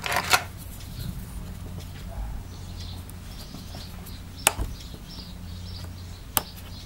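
A few sharp little clicks and taps of a small screwdriver and metal parts on an iPhone 4, as the battery connector bracket is unscrewed, over a steady low electrical hum.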